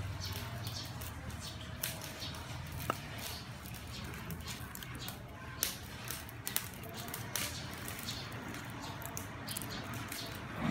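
Small irregular clicks and rustles of garlic cloves being peeled and sorted by hand on a wooden chopping board, with an occasional light tap on the board.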